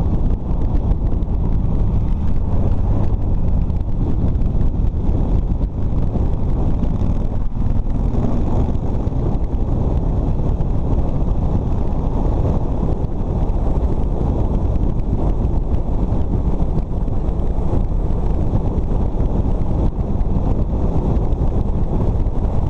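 Wind buffeting the microphone of a camera on a moving motorcycle, a steady low rumble with the bike's engine and road noise underneath.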